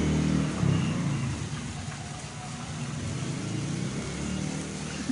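A motor vehicle's engine running close by, loudest at the start and easing off over the first two seconds, over a steady even hiss.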